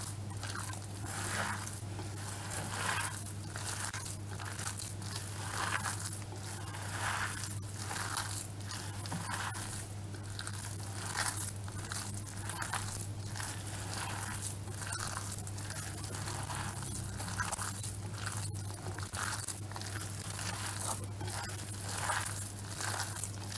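Hands kneading a raw minced-beef köfte mixture with breadcrumbs, egg and grated onion in a glass bowl: wet squishing squeezes repeating a little more than once a second. A steady low hum runs underneath.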